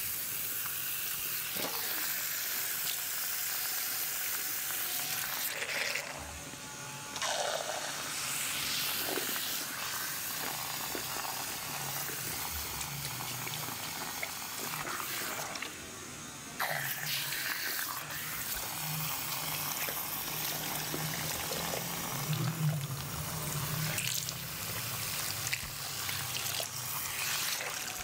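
Water from a barber's backwash sink faucet and hand-held shower spraying and running into the basin as shampoo lather is rinsed from a client's hair. It is a steady hiss that breaks off briefly twice, about six seconds in and again about sixteen seconds in.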